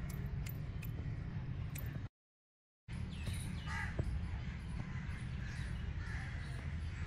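Birds calling over a steady low rumble, with scattered clicks. The sound drops out completely for just under a second, about two seconds in.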